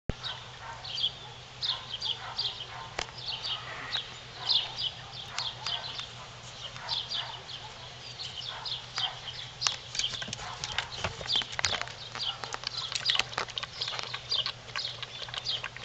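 Puppies scampering on wooden porch boards, their paws and claws tapping and clicking on the planks, busiest in the last several seconds. Short high chirps come in quick clusters throughout.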